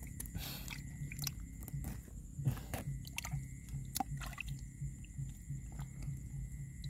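Wet mud squelching as an arm gropes around down inside a narrow muddy hole, a scatter of small sharp clicks and soft squishes.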